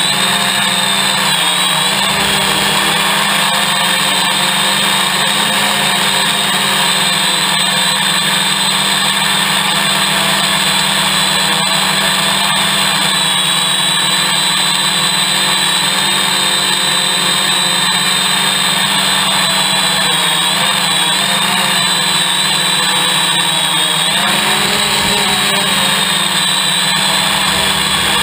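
Hexacopter's six electric motors and propellers running in flight, heard up close from a camera on its frame: a loud, steady whine whose high tone wavers slightly in pitch now and then.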